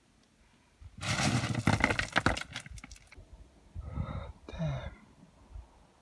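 Loose stones and gravel crunching and clattering underfoot on a scree slope for about two seconds, full of sharp clicks. A short vocal sound follows about four seconds in.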